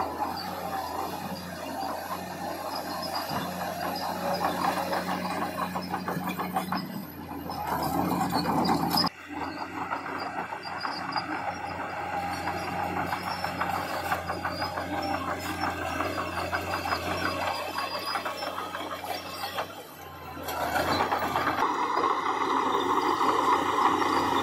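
Heavy diesel construction machinery running, with the sound changing abruptly about nine seconds in and again near the end.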